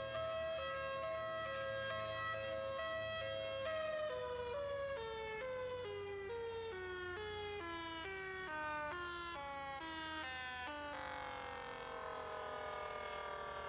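Two-tone hi-lo siren alternating between two notes about every half second. From about four seconds in, it slides steadily lower in pitch while still alternating, then winds down in a smooth falling glide and fades out at the end.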